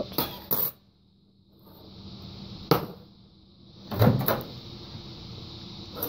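A few separate clicks and knocks of a metal fork and a ceramic bowl being handled on a glass stovetop, with a louder thud about four seconds in.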